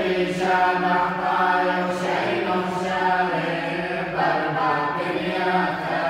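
Voices chanting a Chaldean Catholic liturgical chant: a melody that moves and bends over a steady low held note.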